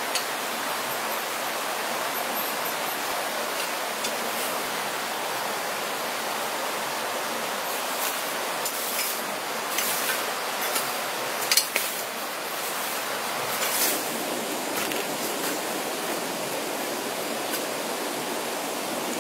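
Steady rush of flowing water, with scattered scrapes and knocks from a short-handled hoe digging dry soil, including a sharp double knock a little past halfway.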